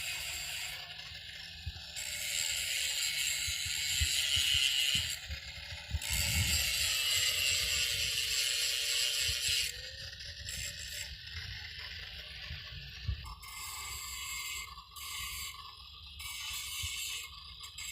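Angle grinder grinding down a weld on a steel angle bar, in three spells of hissing grind over a faint motor whine that sags as it is pressed in, stopping about ten seconds in.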